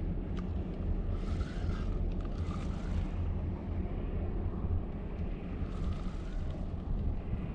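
Wind rumbling on the microphone over open water, steady throughout, with a soft hiss that swells twice.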